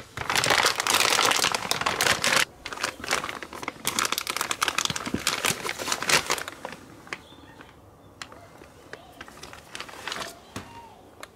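Crinkling, rustling handling noise for about six seconds, then a few light clicks and taps.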